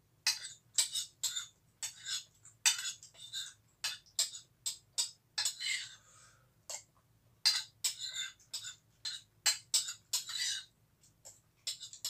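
Metal spoon clinking and scraping against a ceramic soup bowl in many quick strokes, about two a second, while someone eats soup, with a few longer slurping sounds near the middle and near the end.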